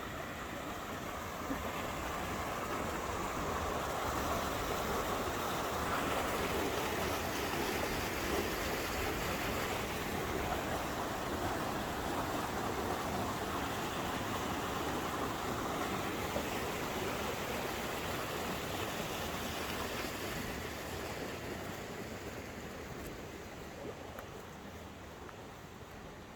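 Rushing stream water, a steady full rush that grows a little louder through the middle and fades gradually near the end.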